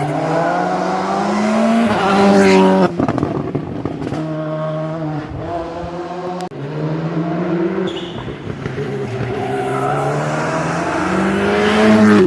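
Rally car engine revving hard on a stage, its pitch climbing and dropping sharply with quick gear changes about two seconds in and again a little later. The pitch climbs again over the second half and is loudest near the end.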